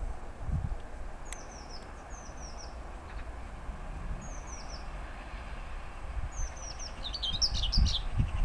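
Small songbirds chirping in short repeated phrases of three or four quick falling notes, with a busier flurry of calls about seven seconds in. Under them is a faint low rumble that starts to build near the end as an electric train approaches.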